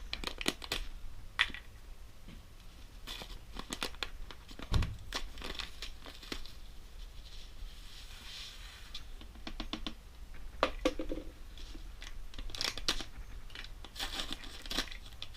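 A package of oats being torn open and handled: repeated tearing, crinkling and rustling of packaging in short bursts.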